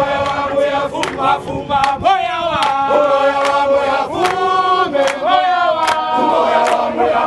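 A crowd of marchers singing a protest song together in long, sliding notes, with hand claps keeping time about twice a second.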